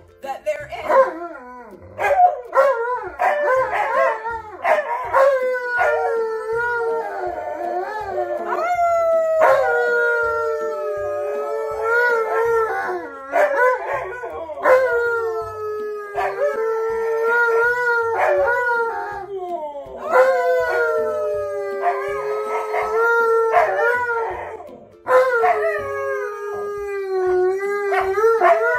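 An Alaskan Malamute and a Siberian husky howling together: a series of long howls, each sliding down in pitch, with short breaks between them.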